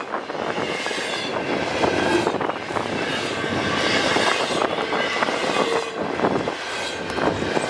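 Freight train cars rolling past on the rails, a steady noise of wheels and cars.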